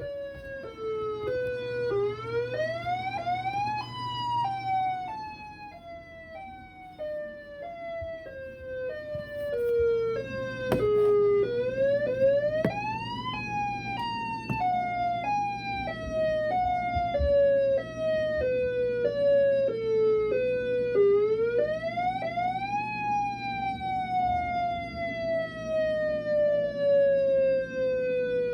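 Tornado siren sounding its alternate wail: a loud pitched tone that sweeps up quickly, then drops back in short steps, over and over. Near the end it makes one long, smooth fall in pitch.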